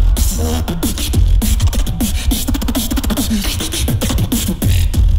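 Competition beatboxing into a handheld microphone: a fast, steady beat of kick and snare sounds with crisp hi-hat clicks, laced with short pitched bass sounds that slide downward.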